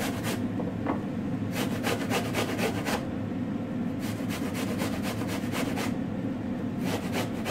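A pear being grated on the coarse shredding side of a stainless steel box grater: quick rasping strokes, about five a second, in runs of one to two seconds with short pauses between.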